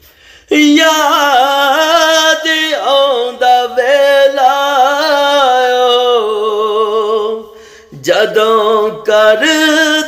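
A man singing a devotional shabad in long, drawn-out notes with vibrato. The line breaks off about three quarters of the way through and a new phrase starts soon after.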